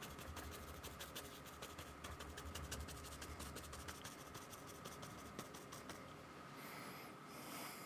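Bristle paintbrush tapping acrylic paint onto sketchbook paper: quick, light, rapid dabs stippling in grass, easing off about six seconds in.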